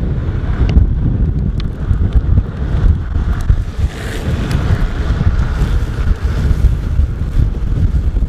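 Rushing air buffeting a camera microphone on a skateboarder going fast down a mountain road: a loud, gusting low rumble with a few sharp ticks.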